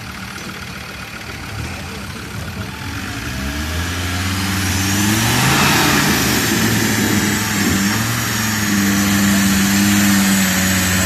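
Modified off-road 4x4's engine revving up about four seconds in, then held at high revs under load as the truck climbs a steep dirt slope on its winch line.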